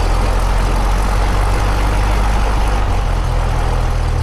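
Cessna 172S's fuel-injected Lycoming four-cylinder engine running just after start, settling toward idle, with the engine note shifting about three seconds in.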